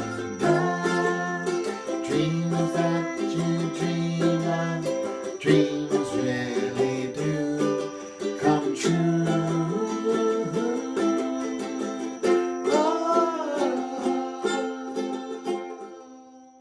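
Ukulele playing a tune in plucked notes and chords, fading out near the end.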